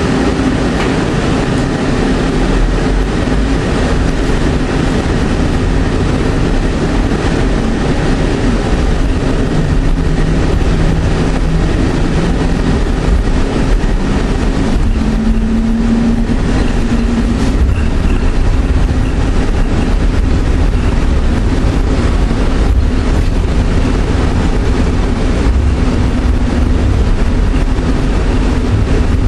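Cable-hauled airport people-mover car running along its elevated concrete guideway, heard from on board: a steady rumble with brief low hums that come and go.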